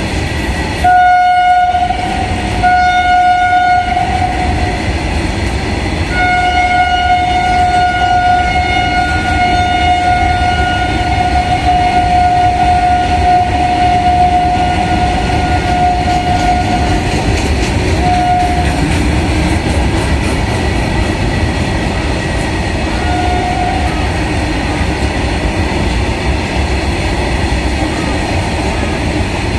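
Loaded freight wagons rolling past at speed, wheels clattering steadily, while the WAG-7 electric locomotive's horn sounds on one steady note: two blasts near the start, then one long blast of about ten seconds, then two short blasts.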